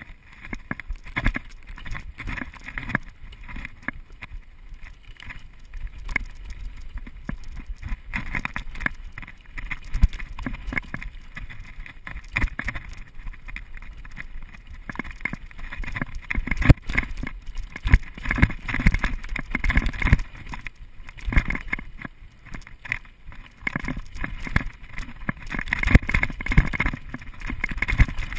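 Mountain bike riding down a rough dirt trail: the tyres rumble on the ground and the bike clatters and knocks over bumps and roots, getting louder in the second half as the pace picks up.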